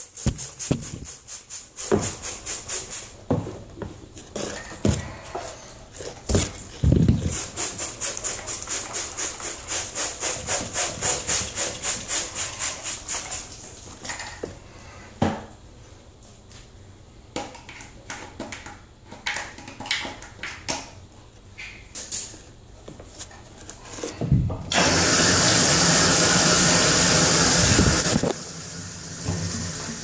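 Hand scraping and scrubbing of grime off the plastic housing of an air-conditioner condensate pump, in quick rhythmic strokes of about four a second, with scattered clicks between the runs. Near the end a bathtub faucet runs with a loud, steady rush of water for about three seconds, then stops suddenly.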